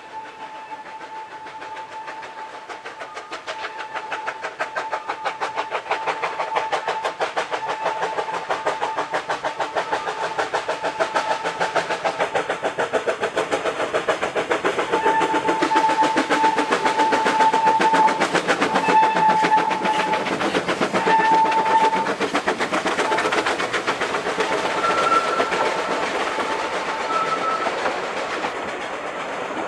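Two Vale of Rheidol narrow-gauge 2-6-2T steam tank locomotives, Nos. 7 and 8, working a double-headed train: a rapid run of exhaust beats grows louder as they approach and pass. Near the end comes the clatter of the carriages rolling by.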